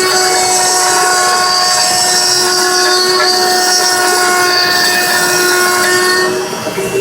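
A CNC machine's spindle running and cutting: a steady high whine with overtones over a hiss of cutting noise. About six seconds in, the cutting noise drops away and the level dips briefly.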